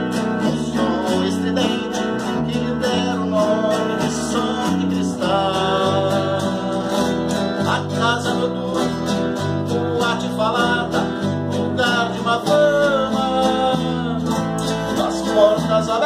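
Two nylon-string classical guitars playing an instrumental passage, a picked melody with some sliding notes over chords, with a bass line stepping from note to note beneath.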